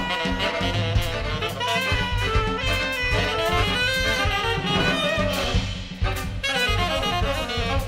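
Live free-improvised jazz from a quartet of two tenor saxophones, viola and drums. A tenor saxophone plays shifting, wandering lines over scattered drum and cymbal strikes.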